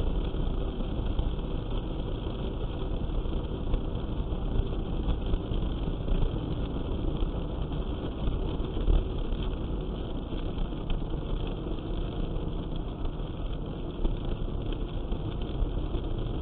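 Steady engine hum and tyre noise heard inside a car cruising at about 80–90 km/h on a snow-covered road.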